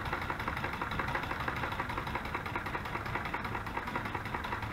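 Electric sewing machine stitching steadily at a fast, even pace, chain-sewing fabric ruffles.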